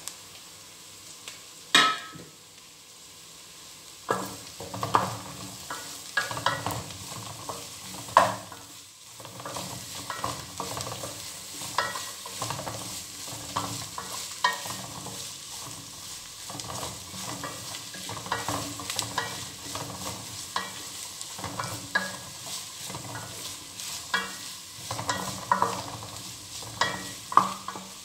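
Carrot and red pepper strips stir-fried in oil in an aluminium pot: a wooden spoon scrapes and knocks against the pot in short, irregular strokes over a faint sizzle. There is one sharp clink about two seconds in, and the steady stirring starts about four seconds in.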